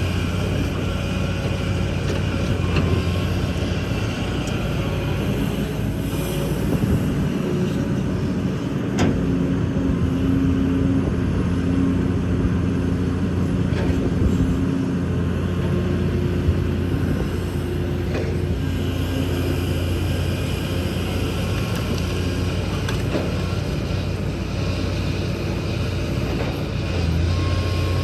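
Kobelco excavator's diesel engine running steadily. A higher tone joins for several seconds in the middle, and there are a couple of sharp knocks.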